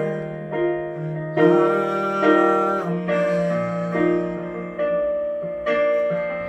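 Keyboard (piano sound) playing slow, sustained chords, with a new chord struck about every second.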